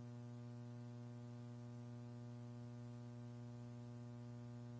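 Steady electrical hum with a faint buzzing edge on the launch-control audio line, unchanging throughout.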